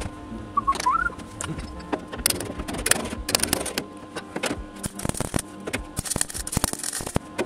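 Sharp hammer strikes on a chisel against the steel edge of a new rear wing, then a MIG welder crackling as short tack welds go on, with a dense run of sharp crackles about five to seven seconds in.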